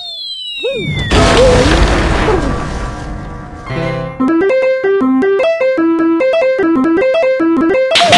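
Cartoon sound effects: a few falling whistles, then a loud crash about a second in that dies away over the next couple of seconds, followed by a tune of short plucked notes.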